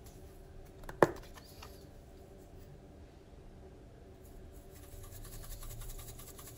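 A plastic flip-top cap on a spice shaker jar snaps once, sharply, about a second in, followed by faint scratchy pattering as dried herbs are shaken out of the jar.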